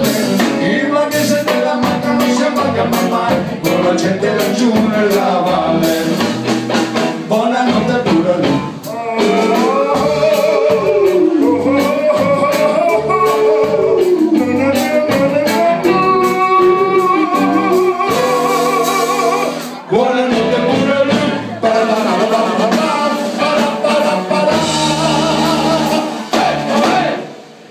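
A live rock band playing a song: male singing over electric guitar, electric bass and a drum kit. The music stops near the end.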